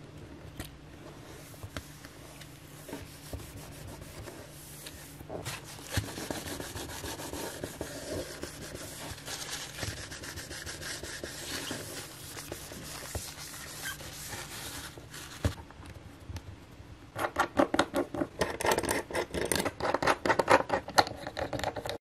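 Fingers pressing and rubbing along an iPad's glass screen, then a tissue wiping across the glass: a soft, steady rubbing and rustling. In the last few seconds the strokes get louder and quicker.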